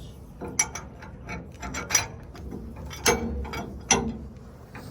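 Steel leaf spring clamp parts knocking and clinking against the leaf spring as they are fitted by hand: a few sharp, irregular metallic knocks, some with a brief ring.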